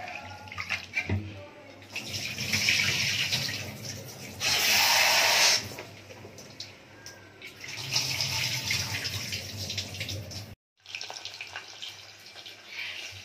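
Tap water running and splashing in several bursts, the loudest about five seconds in, as raw mutton pieces are rinsed in a wire-mesh strainer, with light kitchen handling noise between.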